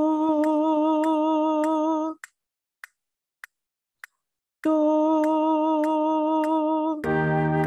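A held E-flat tonic note with a slight vibrato over a metronome ticking about 100 beats a minute. About two seconds in the note stops and only four metronome ticks are heard for a measure of silence. Then the E-flat is held again, and near the end several notes sound together.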